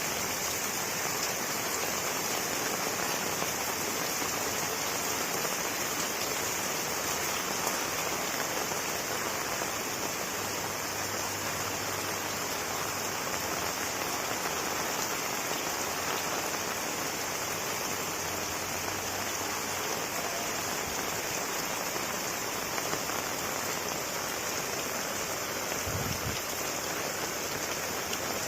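Heavy rain falling steadily, with a brief low thump near the end.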